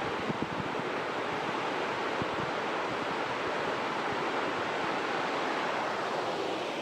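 Steady rushing of a spring river running high, an even wash of water noise with no break or change.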